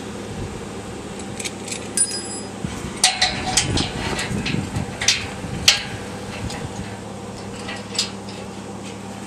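Steady low hum of an idling truck engine, with a run of sharp metallic clinks about three to six seconds in.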